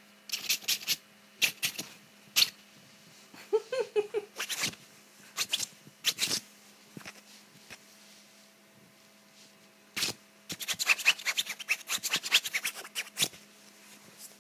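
Quick bursts of scratching and rubbing on bedding as a hand and a cat play on a duvet, coming in clusters with pauses, the longest and densest run from about ten to thirteen seconds in. A steady low hum runs underneath.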